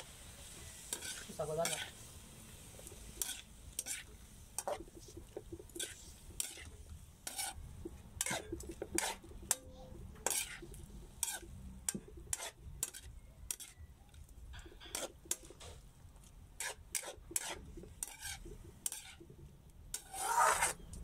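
Metal spatula scraping and clinking against a large wok as cabbage is stir-fried, in irregular strokes about one or two a second, over a faint sizzle. Longer, louder scrapes come about a second in and near the end.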